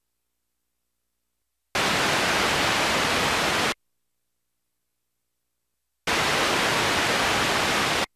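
Two bursts of loud, even static hiss from the videotape playback, each about two seconds long, starting and stopping abruptly with dead silence between them.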